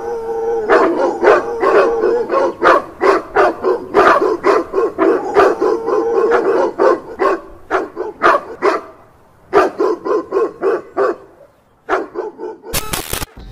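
A dog barking rapidly over and over, about three barks a second, breaking off and coming back for a few more barks. A brief harsh burst of noise sounds just before the end.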